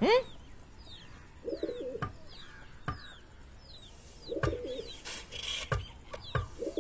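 Pigeons cooing, three low rounded coos a couple of seconds apart, over faint, high, falling chirps of small birds and a few soft clicks.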